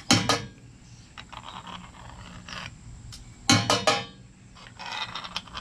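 A metal spoon used to skim dross off molten lead knocking against metal, with scraping between. A burst of quick knocks comes at the start and another about three and a half seconds in.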